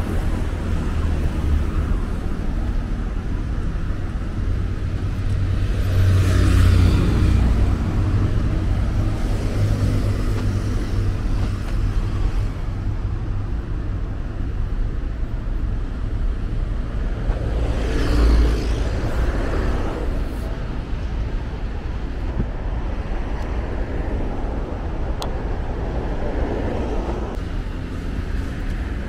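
Steady road traffic on a busy city highway, a continuous rumble of engines and tyres. A few vehicles pass closer and swell louder, about a fifth of the way in, around two-thirds of the way through and near the end.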